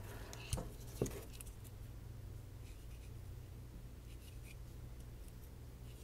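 Faint scratching of a paint marker writing a date on a plastic fuel filter, with two soft clicks about half a second and a second in.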